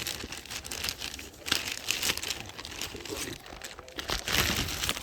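Packaging crinkling and rustling in a run of short, irregular strokes as a boxed tool is handled and unwrapped.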